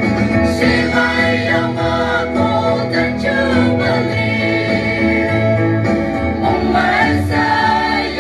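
Mixed choir of men and women singing together into microphones, several voices in harmony with long held notes, over low sustained notes that change in steps.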